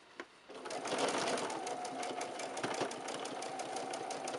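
Electric sewing machine starting after a single click about half a second in, then running steadily while stitching pieced cotton quilt fabric. It has a constant motor whine and a rapid, even ticking of the needle strokes.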